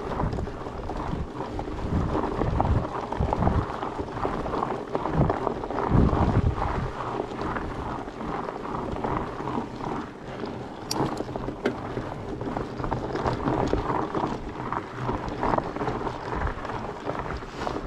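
Wind buffeting the microphone over the crunch of 4.8-inch fat-bike tyres rolling slowly uphill on a loose dirt-and-gravel trail, with a couple of sharp clicks about eleven seconds in.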